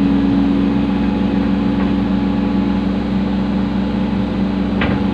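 Excavator's diesel engine running steadily with an even hum, and a short click near the end.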